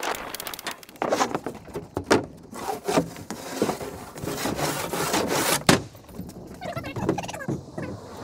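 OSB roof sheathing panels scraping and knocking against the roof edge and decking as they are hauled up and handled, irregular rubbing with sharp wooden knocks, the loudest about two-thirds of the way through.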